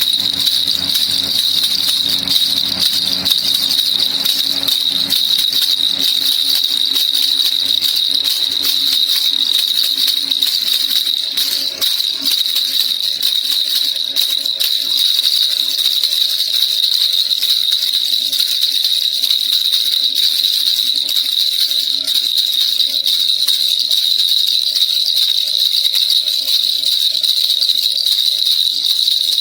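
Baby rattle (kilukilupai) shaken without pause, a dense steady jingling rattle.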